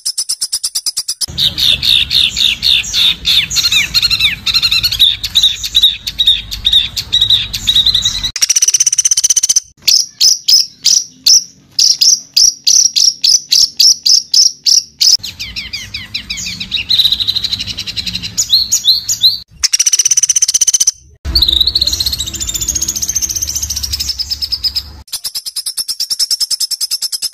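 Songbirds singing harsh, rapid-fire trills and repeated chattering notes, in a series of spliced recordings that change abruptly every few seconds, some with a low hum under them.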